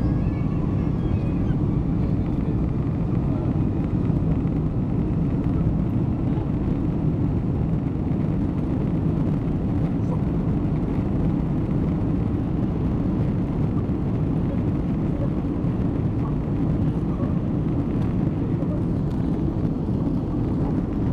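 Steady jet-engine and cabin rumble heard from inside an airliner cabin as it rolls along the runway at low thrust, holding even with no spool-up.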